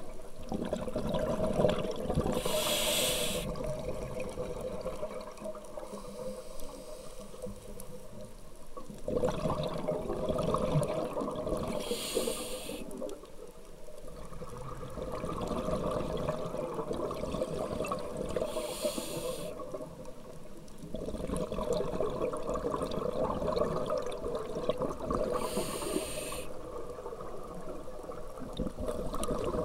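Scuba diver breathing through a regulator underwater: a short hissing inhalation four times, several seconds apart, with long spells of bubbling exhalation between them.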